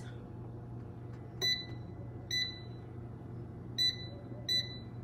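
Kion air fryer's touch-panel controls beeping four times, one short high beep per press, as the temperature setting is stepped down.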